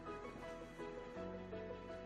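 Background music: soft melodic notes changing every half second or so over a held bass line.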